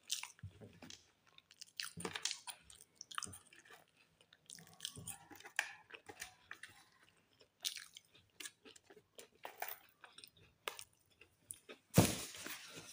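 Close-up chewing and crunching of crisp toasted bread, in short irregular bursts, with a louder burst of noise near the end.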